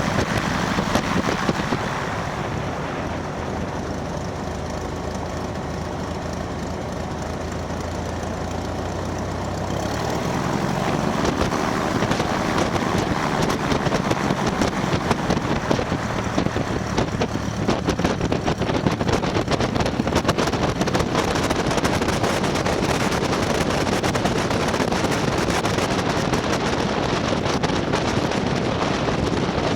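A light aircraft's engine and propeller running steadily at low power. About ten seconds in, the pitch rises and the sound grows louder and noisier as power comes up for takeoff.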